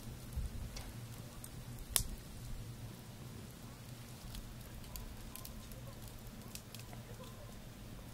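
Wood fire crackling in a steel fire pit: sparse snaps and pops, with one sharper pop about two seconds in.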